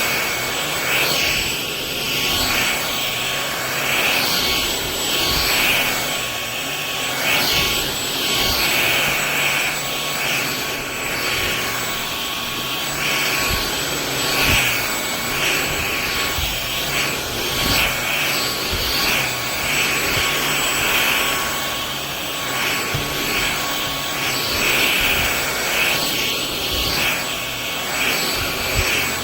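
MBYULO cordless stick vacuum running, a steady high motor whine over the rush of suction, its level rising and falling a little.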